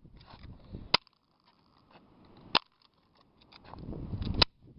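Three airsoft gun shots, each a single sharp crack, about one and a half to two seconds apart, with rustling handling noise building up before the third.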